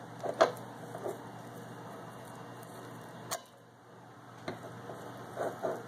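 Light handling noises, a few scattered soft clicks and taps as food is moved from plate to pan, over a low steady room hum; the sharpest click comes about three and a half seconds in.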